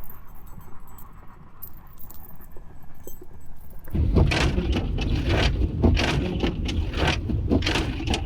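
Van with chained tyres creeping through deep powder snow: a low rumble with faint metallic clinks, then about four seconds in a loud, irregular crunching and scraping.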